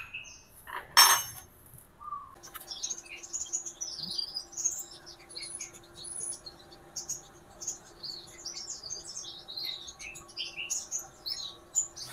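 A sharp metallic clink about a second in, like a tool being handled. After that, many birds chirp continuously over a steady low hum.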